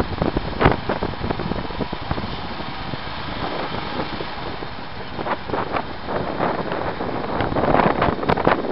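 Vehicle driving along a road, heard from on board: steady engine and road noise with wind buffeting the microphone in irregular gusts, heavier in the second half.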